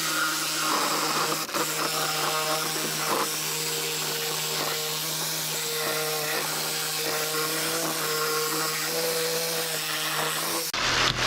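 A handheld power tool runs steadily for about ten and a half seconds, working on a scrap radiator, and cuts off sharply near the end. Its steady motor hum carries a wavering metallic ringing.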